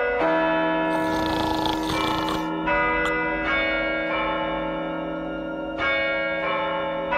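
Bells ringing with long, overlapping sustain, a new stroke every second or so, as a sound cue. A brief hiss rises over them about a second in.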